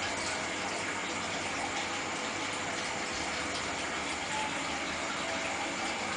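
Steady rush of water in a running aquarium: the filter outflow and air bubbles churning the surface, even and unbroken, with a faint steady hum beneath.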